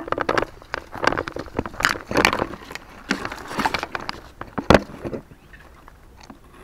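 Dense brush and branches scraping, rustling and crackling against clothing and the camera as someone forces a way through thick scrub, with one sharp snap about three-quarters of the way through.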